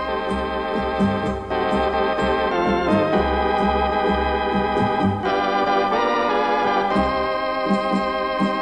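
Instrumental background music: held, organ-like chords that change every couple of seconds over a low bass line.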